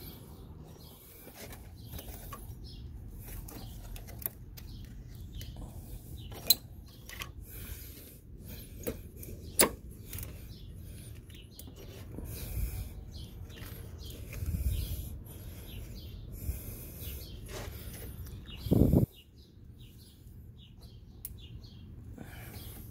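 Scattered metal clinks and taps of hand tools against the alternator and its brackets, with two heavier thuds, one past the middle and a louder one near the end.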